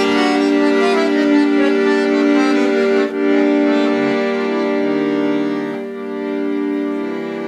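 Instrumental passage of the song: held chords with changing notes, broken briefly about three seconds in and softer from about six seconds.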